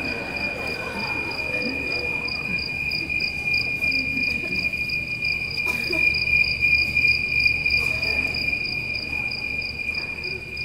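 A cricket trilling steadily, one continuous high-pitched chirr with a fast even pulse, under faint voices and a single soft knock about six seconds in.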